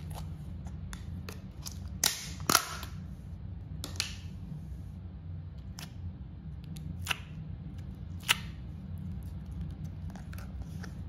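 Sharp clicks and snaps from a plastic slime tub being opened and fingers poking and pulling at the slime, the two loudest snaps coming close together about two seconds in. A steady low hum runs underneath.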